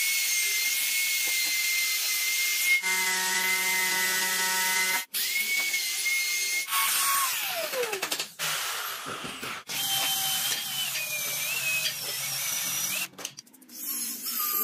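Compact trim router running at high speed with a steady high whine as it cuts into wood, heard in several short clips. In one clip the motor winds down, its pitch falling. Near the end a small handheld rotary tool grinds into the wood.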